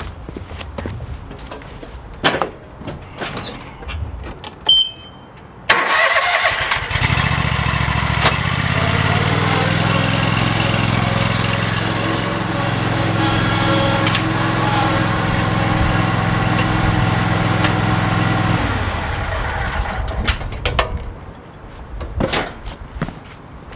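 An Exmark Lazer Z zero-turn mower's engine starts about six seconds in, runs steadily for about twelve seconds, then shuts off. Light clicks and clinks of metal tools are heard before and after.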